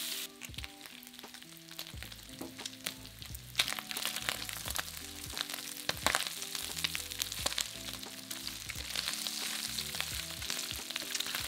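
Pork belly pieces sizzling and spitting in hot oil in a stainless steel pan, with a spatula scraping and turning them. Soft background music with a simple melody runs underneath.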